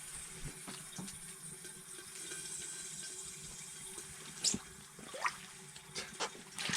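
Water trickling and sloshing, with a few scattered clicks and a short rising squeak about five seconds in.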